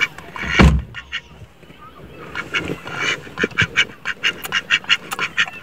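Mallard drake quacking in rapid short calls, about four or five a second, from about two and a half seconds in. A single thump about half a second in.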